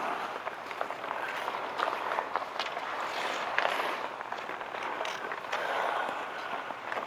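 Outdoor ice hockey play: skate blades scraping and gliding on the ice, with scattered sharp clacks of sticks and puck.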